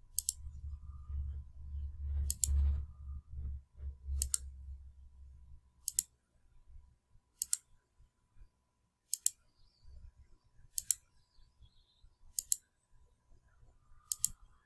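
Computer mouse clicked nine times at a steady pace, about one click every 1.7 seconds, each a crisp press-and-release pair. Each click reruns the randomizer on the list of names, counting toward the ten required randomizations. A faint low rumble sits under the first few seconds.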